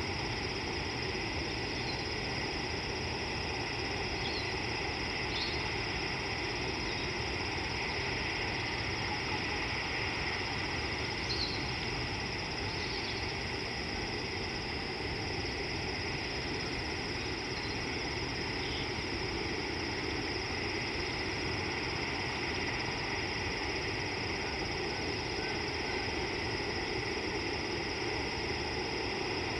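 Steady background hiss and hum with several constant tones, broken by a few faint, short high chirps now and then.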